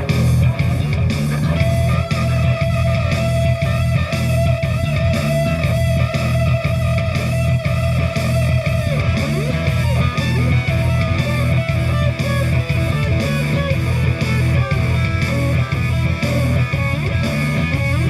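A live band playing loud heavy rock during a sound check: electric guitar and bass over a steady beat.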